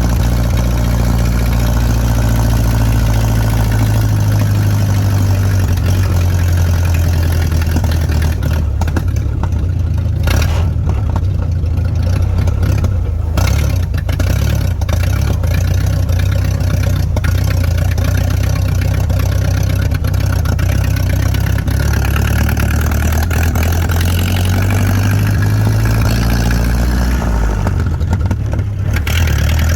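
Early-1930s Plymouth's four-cylinder engine running, its note shifting up and down a few times as engine speed changes.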